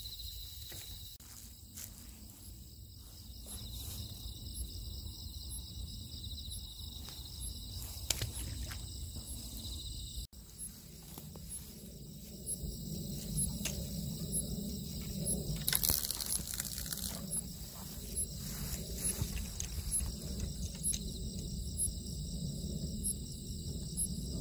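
Night insects chirping steadily in the waterside grass, a high, even trill with regular faint pulses over it. A low rumbling handling or movement noise and a few clicks grow stronger after about half way through.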